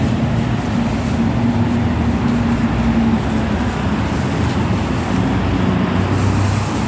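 An engine or motor running steadily with a low hum that shifts lower in pitch about five seconds in, under a loud rushing noise.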